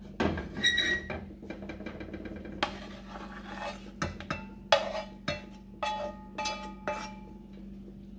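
Serving spoon scraping and knocking against a nonstick skillet and a ceramic plate as scrambled egg with shrimp is spooned out: a run of scrapes and a dozen or so clinks, some ringing briefly.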